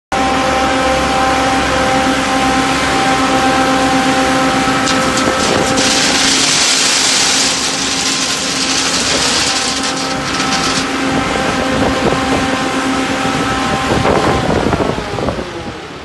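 Diesel engines running steadily. For a few seconds in the middle, gravel pours from a wheel loader's bucket into a concrete mixer's hopper in a loud rushing rattle. Near the end an engine's pitch shifts.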